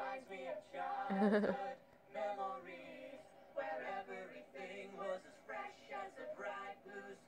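Several voices singing, heard from a television playing in the room.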